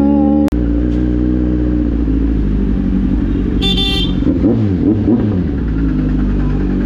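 Kawasaki Z900's inline-four engine running at low speed in slow traffic, with a couple of quick rising-and-falling throttle blips a little past the middle. A vehicle horn toots briefly, for about half a second, just before the blips.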